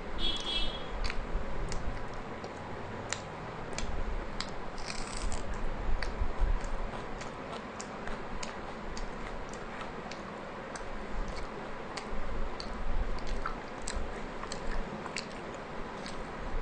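A person chewing soft rumali roti, with frequent sharp mouth clicks and smacks scattered throughout. A brief high chirp comes right at the start.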